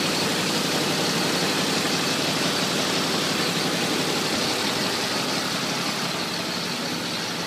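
2009 Triumph Speed Triple's engine idling steadily, getting slightly quieter near the end.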